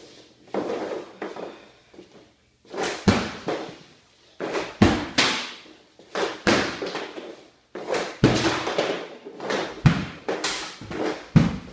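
Easton V9E composite hockey stick firing pucks off a hard shooting floor into a shooting tarp: repeated sharp cracks and thuds, some in quick pairs, about one shot a second from about three seconds in, with softer scraping of pucks being pulled into position before.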